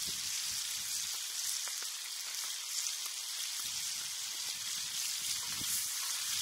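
Bacon sizzling steadily in a frying pan as its fat renders out, with small pops throughout.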